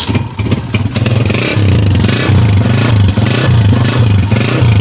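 Honda CG 125's single-cylinder four-stroke engine running, its exhaust giving a loud, steady, pulsing low note. There are some clattery knocks in the first second or so.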